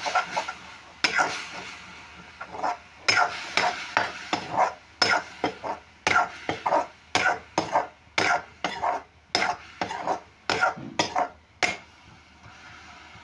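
A spatula stirring and scraping onion greens around a pan in a quick run of short strokes, about one to two a second, which stop near the end.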